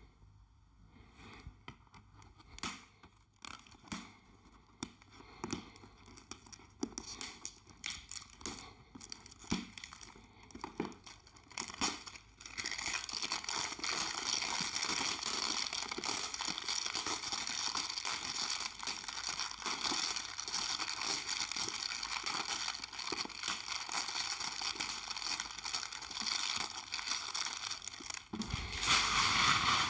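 Clear plastic shrink wrap being torn off a cardboard box and crumpled: scattered small clicks and rustles at first, then continuous crinkling from a little before halfway, louder near the end.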